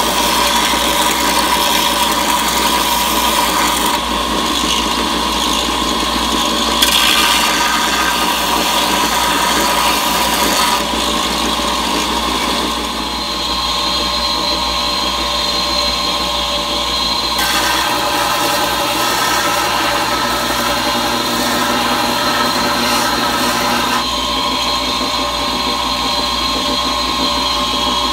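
Bench belt sander running with a coarse belt, grinding the domed steel striking face of a Craftsman 18 oz adjustable claw hammer flat: a steady motor whine under the hiss of abrasive on steel. The sound changes abruptly every few seconds, and the hiss is lighter in the second half.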